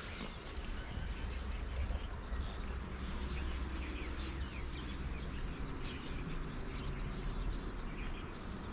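Many small birds chirping in quick, short calls, over a steady low rumble.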